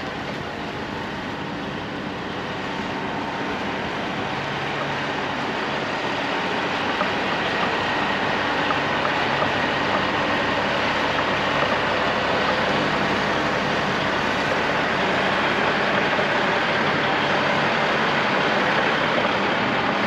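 Steady heavy diesel machinery running, a dense mechanical rumble with a low hum that grows slightly louder.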